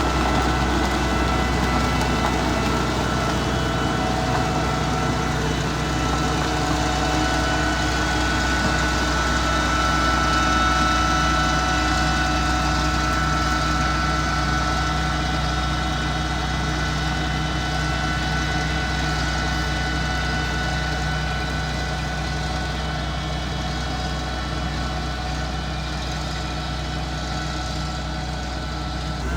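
Mitsubishi MG430 motor grader's diesel engine running steadily, a little quieter near the end.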